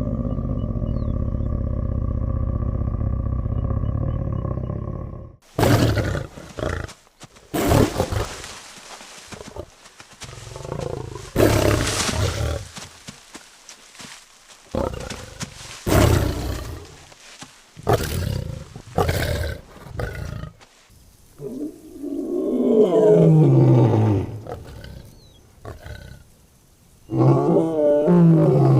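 Lion roaring. After a steady low drone in the first five seconds comes a string of short, loud grunting roars about every one to two seconds, then two longer roars that fall in pitch near the end.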